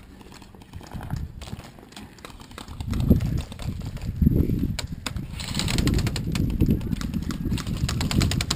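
A fast run of sharp clicks about halfway through, the kind of rapid fire airsoft guns make. Under it, a low, uneven thumping rumble on the microphone.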